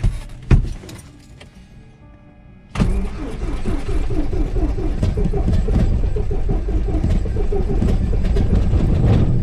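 A Cessna's single piston engine and propeller running at taxi power, heard from inside the cockpit with a steady pulsing drone. It comes in abruptly about three seconds in, after a thump and a quieter stretch.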